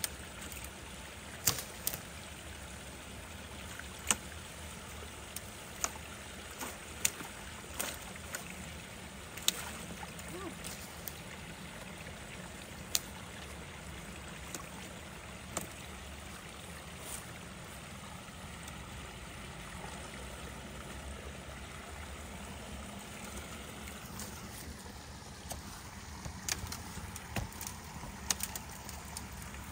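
Water running and trickling through a beaver dam as it is pulled apart, with scattered sharp cracks and knocks of sticks and branches being cleared from it, about a dozen, coming closer together near the end.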